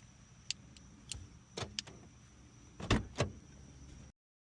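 Sharp plastic clicks and snaps of a car key fob being opened and its coin-cell battery swapped, about seven separate clicks with the two loudest close together near three seconds in. The battery is being changed because the remote works only intermittently, which is put down to a weak battery. The sound cuts off suddenly near the end.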